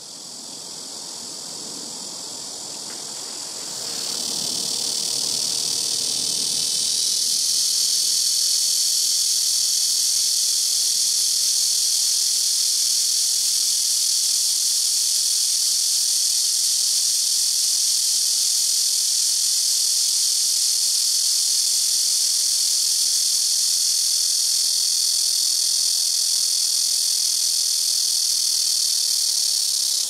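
Black cicada (Cryptotympana atrata) calling: a very loud, continuous high-pitched buzzing drone that swells over the first several seconds, then holds steady.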